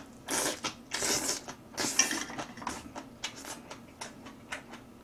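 A person slurping instant ramen noodles in three noisy pulls over the first two seconds or so, then chewing, with light clicks of metal chopsticks.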